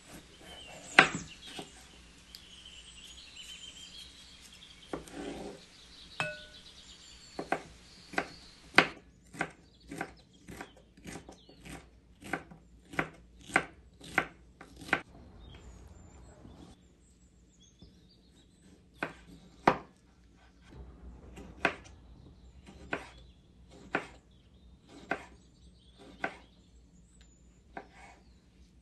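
Kitchen knife slicing a red bell pepper and then a tomato on a wooden cutting board: a series of sharp knocks as the blade hits the board, about two a second, with a short pause near the middle.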